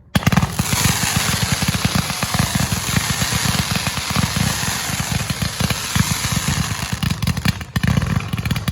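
Fireworks going off in a dense, rapid crackle of many small pops that starts suddenly and keeps going without a break.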